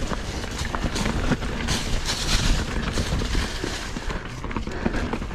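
Mountain bike climbing a leaf-covered dirt trail: knobby tyres rolling and crunching through dry fallen leaves, over a steady low rumble.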